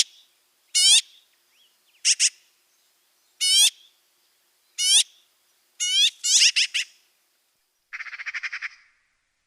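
Magpie calling: a series of short, harsh calls about one every second and a half, crowding together around two-thirds of the way through, then a fast rattling chatter near the end.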